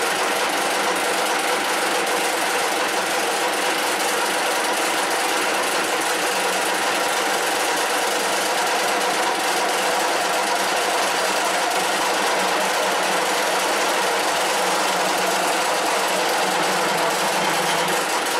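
1K62 screw-cutting lathe running at a steady, even level, its spindle and gearbox turning while the cutter works a bar of hex stock.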